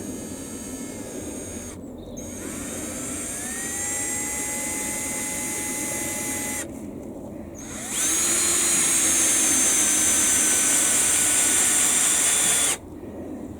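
Power drill running in three bursts into timber. The second winds up to a steady whine, and the last and loudest runs about five seconds before cutting off.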